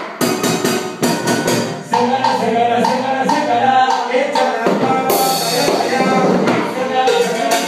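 A Latin band playing live in rehearsal: full ensemble music with steady percussion strikes and a bright crash about five seconds in.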